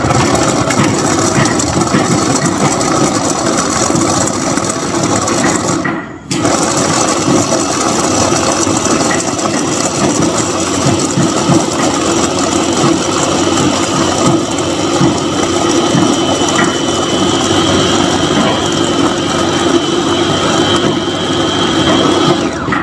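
Electric blender with a stainless steel jar running at full speed. It cuts out briefly about six seconds in, starts again, and stops suddenly at the end.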